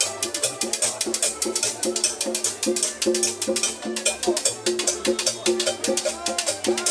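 Live dance music from a small acoustic band: accordion, upright bass and drum, over a fast, steady percussion beat.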